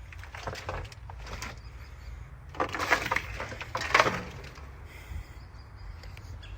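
Crackling, rustling handling noises from wiring harness and plastic parts being worked by hand, in four short bursts with the loudest two near the middle, over a steady low hum.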